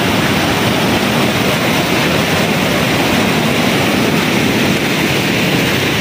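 A large waterfall's rushing water: a loud, steady, unbroken roar of falling water.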